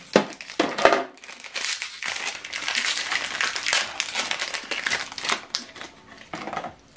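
Foil packaging of an HP 305 tri-color ink cartridge crinkling as it is unwrapped by hand, with small clicks and rustles. It dies down near the end.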